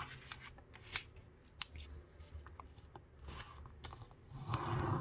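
A sheet of paper being folded and creased by hand: faint rustling with scattered sharp crinkles and clicks.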